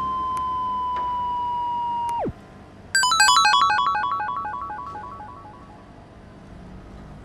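Synthesized electronic sound effects. A steady electronic tone drops away in a quick downward glide about two seconds in. Then comes a rapid run of short electronic chime notes, stepping down in pitch, echoing and fading out over a few seconds.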